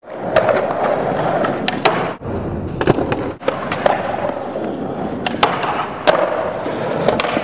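Skateboard wheels rolling on smooth concrete, with several sharp clacks of the board hitting the ground and a brief lull about two seconds in.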